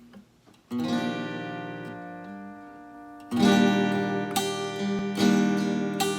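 Acoustic guitar strumming chords. A first chord rings out under a second in and slowly fades, then fuller strumming starts about three seconds in with a stroke roughly every second. The guitar is a little out of tune, by the player's own account.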